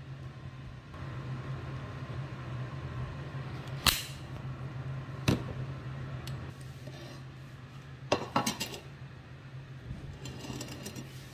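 Dishes and utensils handled in a kitchen: a few sharp clinks and knocks, two single ones and then a quick cluster about eight seconds in, over a steady low hum.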